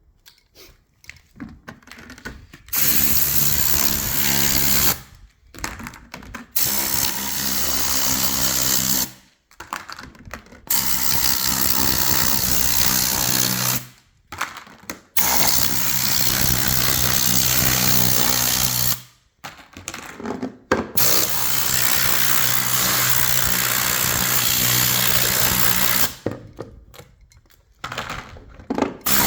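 Compressed-air blow gun firing a series of long blasts of hissing air, about six in all, each lasting a few seconds with short pauses between them, aimed at stick-on labels on a plastic storage box to lift them off.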